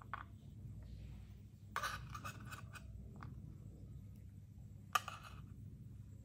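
Quiet kitchen handling sounds: short scrapes at about two seconds, a faint tick, then one sharp click near five seconds, over a low steady hum.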